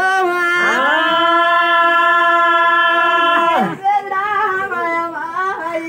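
A man's voice chanting a Telugu folk narrative of the Golla community. It swoops up into one long held note for about three seconds, drops off, then goes on in a wavering recitation over a steady underlying tone at the same pitch.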